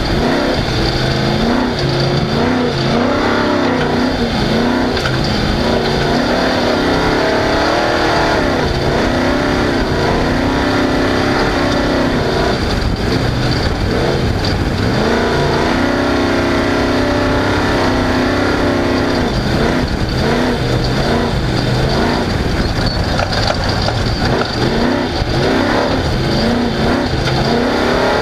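Off-road race car's engine running hard, its pitch rising and falling over and over with throttle and gear changes.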